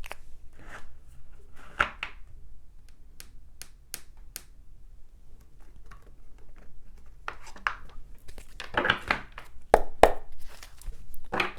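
Oracle cards being shuffled and handled: bursts of card rustling and riffling with a few sharp single taps in between, busiest in the second half.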